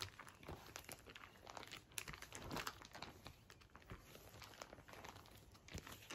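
Faint crinkling and rustling of a trading-card binder's plastic pocket pages as they are turned and handled, with scattered small crackles.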